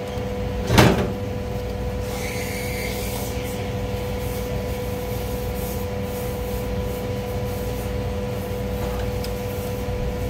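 A sharp metal clunk about a second in as a small fan motor on its steel mounting bracket is handled over a stainless-steel counter, followed by light rubbing and handling noises. A steady machine hum with a constant tone runs underneath.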